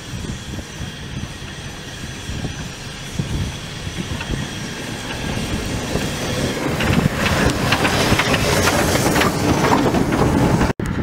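Small steam tank locomotive running toward and past at close range, getting steadily louder, with hissing steam and wheels clattering on the rails as it passes. The sound cuts off abruptly just before the end.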